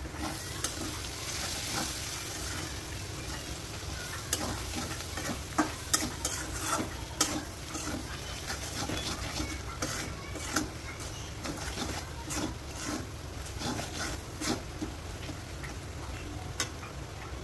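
Sliced onions and spice powders sizzling in oil in a wok-style pan, stirred with a metal spatula that scrapes and clicks against the pan at irregular moments.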